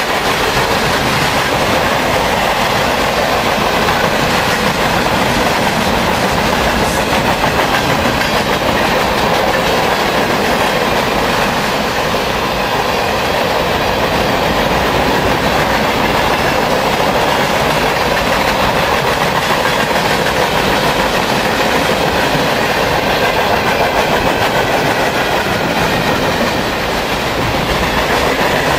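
Loud, steady rolling noise of a freight train's cars passing close by: steel wheels running on the rails under a string of boxcars, autoracks and container cars.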